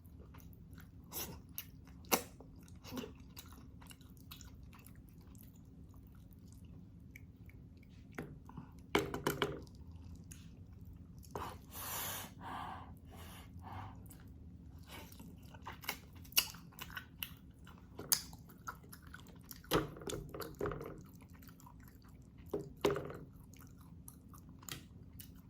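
Close-miked chewing and eating of beef stew: wet chewing with lip smacks and sharp clicks in irregular clusters, a quieter pause of a few seconds, then more chewing. A faint steady low hum runs underneath.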